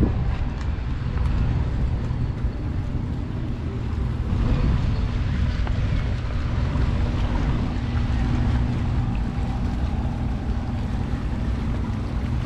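Wind rumbling on the microphone over a steady low hum of boat engines.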